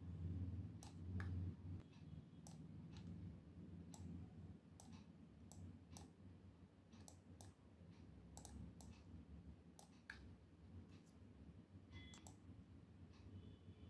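Faint, irregular clicking of a computer mouse, about one or two clicks a second, some in quick pairs, over a low steady hum.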